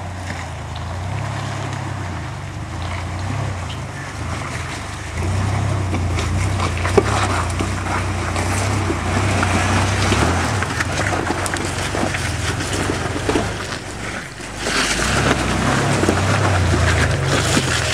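1993 Ford Explorer Sport's 4.0-litre V6 running under load as the truck crawls over rocks and through mud, its note rising and falling with the throttle, with scattered knocks and a sharp knock about seven seconds in.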